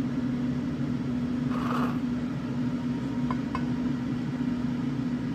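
Steady machine hum, with a short hiss about one and a half seconds in and two light clicks around three and a half seconds.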